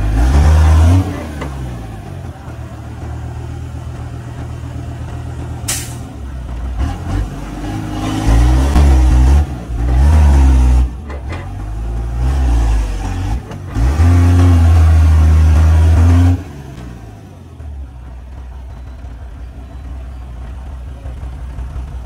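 Heavy vehicle's diesel engine revving hard in repeated bursts, near the start, around eight to eleven seconds in and again around fourteen to sixteen seconds in, dropping back to a lower run in between. This is typical of a truck straining in mud. A single sharp knock is heard about six seconds in.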